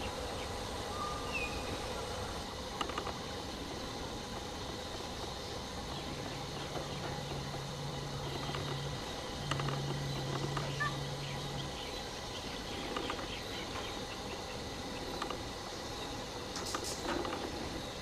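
Forest ambience: a steady hiss with a faint, even insect drone, and two low, flat hums in the middle, about three and two seconds long.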